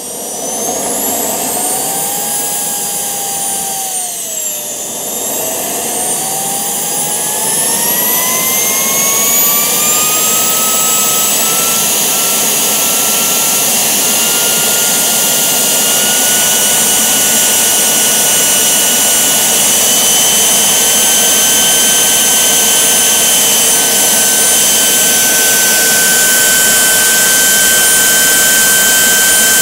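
Home-built Kamps gas turbine running on kerosene: a high whine over a rushing hiss. Its pitch dips slightly about four seconds in, then climbs for several seconds as the fuel pressure is raised, and holds steady for the rest.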